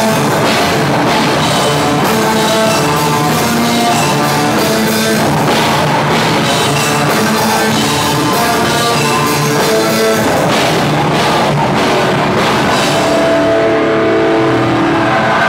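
Loud live rock band playing: drum kit with cymbals and guitar in a steady heavy beat.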